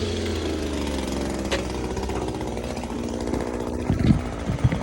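Petrol lawn mower engine running steadily, with a few sharp knocks near the end.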